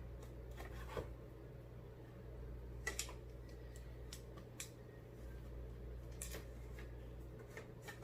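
Light, scattered clicks and taps of a plastic sneeze guard being handled and its parts fitted together, over a steady low hum.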